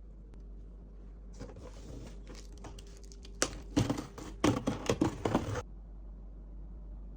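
Packaging rustling and crinkling as it is handled, building to a burst of louder crackles and knocks over about two seconds, then stopping.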